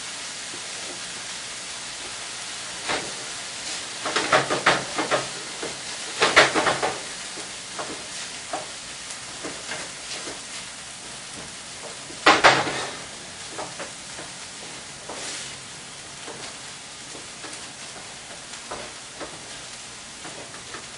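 Food sizzling steadily in a frying pan, with a utensil scraping and knocking against the pan in several short bouts of stirring, the loudest about six and twelve seconds in.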